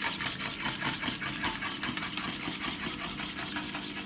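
Wire whisk beating egg yolks and melted butter in a ceramic bowl, in a fast, even rhythm of strokes against the bowl: a béarnaise sauce being emulsified.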